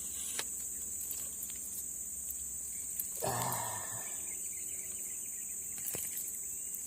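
Steady high-pitched insect chorus, with a brief breathy sound about three seconds in and a few faint clicks.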